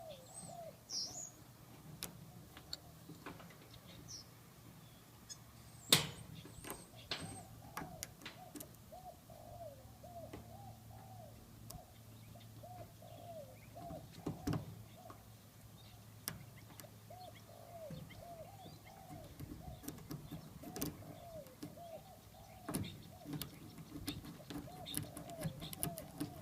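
Lock pick raking and scraping inside a rusty pin-tumbler padlock: irregular small metallic clicks and scratches, the sharpest about six seconds in. Behind it a bird repeats short calls over and over, with a few high chirps near the start.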